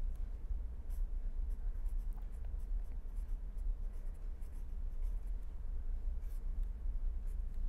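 A pen scratching on paper as an equation is written by hand, in many short strokes, over a steady low hum.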